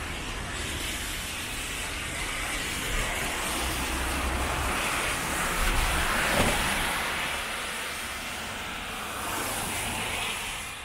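Traffic on a wet city road: a bus passes close by, its tyres hissing on the wet surface, the sound swelling to a peak about six seconds in and then fading, over the steady noise of other cars.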